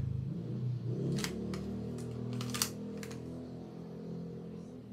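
M1911 Compact airsoft replica pistol being handled: a series of about five sharp plastic-and-metal clicks as the slide is worked, the loudest about two and a half seconds in. A low steady hum runs underneath.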